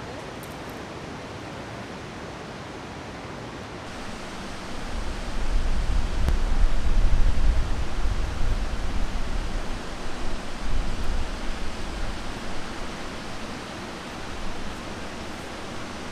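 Steady rush of river rapids. A low, uneven rumble swells about four seconds in and dies away by about fourteen seconds.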